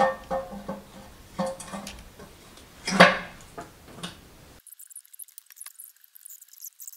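Metal knocks and clinks as the intake manifold of a BMW M51 turbodiesel is handled and seated onto the engine, several separate strikes with the loudest about halfway through. About two-thirds of the way in, the sound cuts off abruptly, leaving only faint high-pitched sound.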